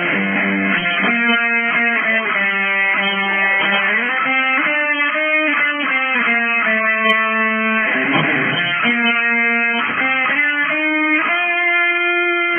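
Electric guitar playing music, held notes and chords changing every second or so, with strummed chords about a second in and again about eight seconds in.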